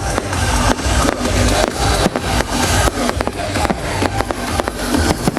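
Fireworks display: a dense, irregular run of bangs and crackles from bursting shells, with music playing underneath.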